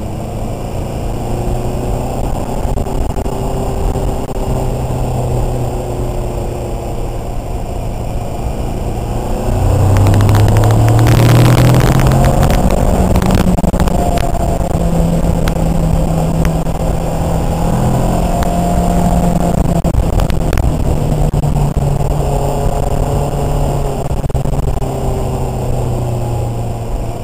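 650R motorcycle's twin-cylinder engine running through a homemade exhaust, built from a gutted stock muffler casing, while riding. The engine note rises and gets louder as the bike accelerates about ten seconds in, with a rush of wind noise at that point, then holds fairly steady.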